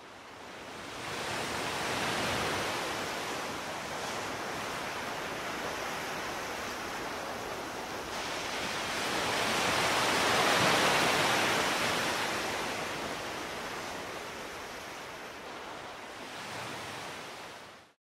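Ocean surf washing onto a sandy beach: a steady rush that swells and ebbs, loudest about ten seconds in, then fades out near the end.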